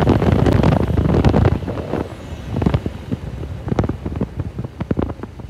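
Motorcycle running on the move with wind buffeting the microphone, dying away about two seconds in, then scattered sharp clicks and knocks.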